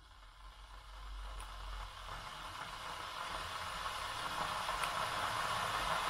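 Gooseneck electric kettle heating water: a steady hiss that swells louder as the water warms.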